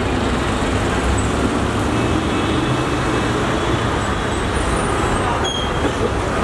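Heavy street traffic: a city bus, cars and auto-rickshaws running close by, a steady dense mix of engine and road noise.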